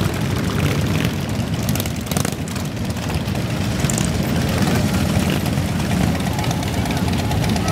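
Motorcycle engines rumbling steadily, a dense low sound with no breaks.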